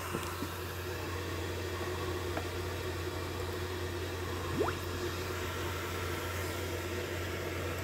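Low steady hum and hiss, with a faint tone gliding quickly upward about four and a half seconds in: a DATS test sweep driven through a quad-voice-coil subwoofer in free air to measure its parameters.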